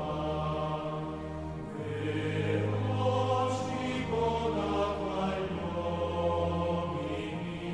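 Slow background music with long held, choir-like chords over a low bass note that changes about two seconds in and again near the end.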